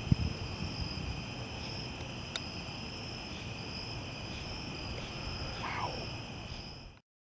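Low rumble of thunder from a distant thunderstorm, starting suddenly with a sharp crack and rolling on for several seconds, over a steady chorus of night insects chirping. The sound cuts off abruptly near the end.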